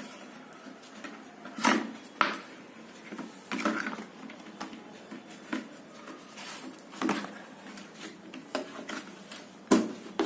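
A boxed product being unpacked by hand: scattered knocks, scrapes and rustles of the box and its packaging being handled, with a louder knock near the start and another near the end.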